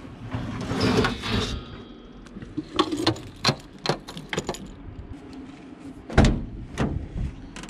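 A slide-out barbecue grill tray scraping as it is pushed back into its compartment in the side of a campervan, then keys jingling and several sharp clicks as the compartment hatch lock is worked. A loud thump comes about six seconds in.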